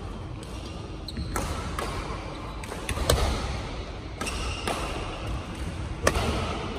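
Badminton rackets hitting a shuttlecock in a fast rally: a string of sharp pops, about one every half second to a second, the loudest about three seconds in, each ringing briefly in the hall.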